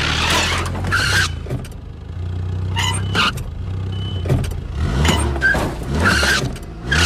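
Semi truck's diesel engine running at low revs, heard from the cab, its pitch rising and falling in the second half as the truck is manoeuvred in reverse. Several short bursts of hiss sound over it.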